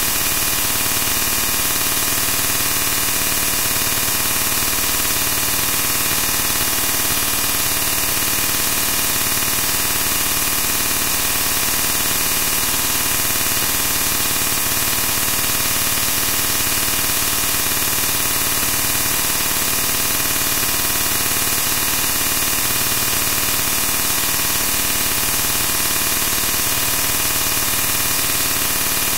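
Steady, unchanging hiss like static or white noise, brightest in the treble, with no breaks or events.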